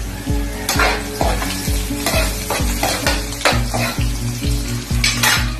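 Metal spatula scraping and stirring chopped aromatics frying in oil in a metal wok, a sizzle with sharp scrapes at irregular intervals. Background music with a steady beat about twice a second plays underneath.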